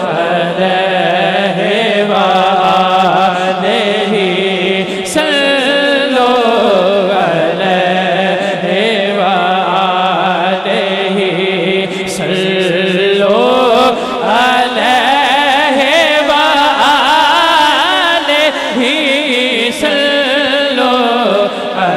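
A man singing a devotional kalam (naat) into a handheld microphone, holding long notes with a wide, wavering vibrato and sliding ornaments between pitches.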